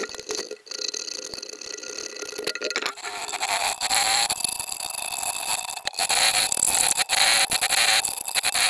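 A hand file scraping along the edge of a guitar fretboard, trimming the white plastic binding flush in repeated strokes. The strokes are light and broken for about the first three seconds, then steady and louder.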